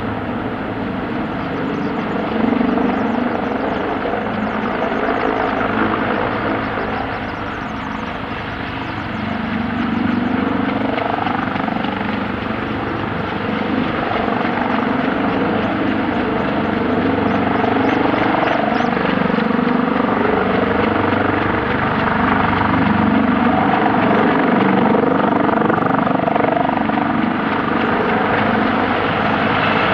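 A US Marine Corps CH-53E Super Stallion heavy helicopter running, its three turboshaft engines and rotor making a dense, continuous noise with steady engine tones through it. It dips slightly about a quarter of the way in, then grows gradually louder through the second half.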